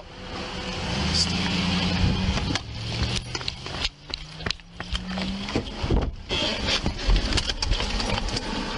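Rubbing and handling noise on a police body camera as the officer walks, over a low engine hum. In the second half come sharp knocks and clicks as he opens his patrol car's door and leans in.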